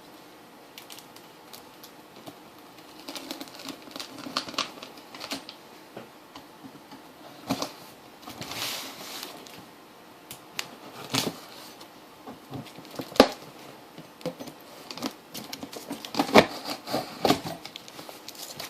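Hands handling a newly unboxed bench power supply and its packaging: irregular clicks, taps and knocks with a short rustle about 8 seconds in, and one sharp knock about 13 seconds in.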